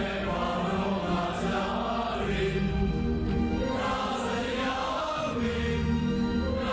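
A large mixed choir of men and women singing in long held notes, backed by an orchestra.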